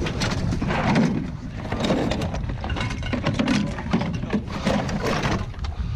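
Hard plastic knocking and clattering as a kayak's bow hatch lid is opened and its plastic hatch tub is lifted out and handled, with many short knocks throughout.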